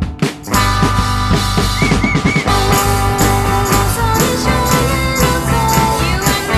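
Indie pop song: after sparse plucked notes, the full band with drum kit comes in about half a second in and plays on steadily.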